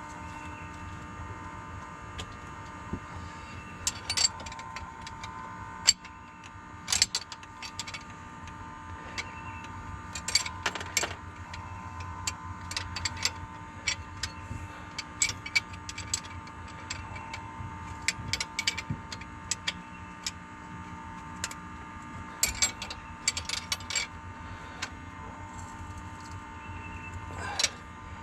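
Scattered sharp metallic clicks and clinks of hand tools and fittings being worked on a diesel engine's fuel injectors, coming in small clusters every few seconds, over a steady high hum.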